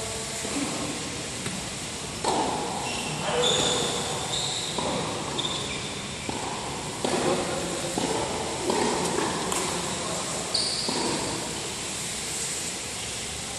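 Indoor tennis hall between points: sneakers give short high squeaks on the hard court, and several balls bounce with knocks that echo in the large hall.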